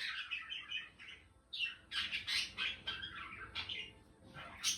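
Indian ringneck parrots chattering: a run of short, high-pitched chirps and squawks, broken by a brief lull a little over a second in.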